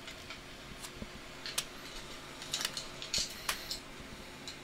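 Scattered light plastic clicks and taps as the opened Toshiba Satellite laptop's chassis and screen are handled, over a faint steady hum.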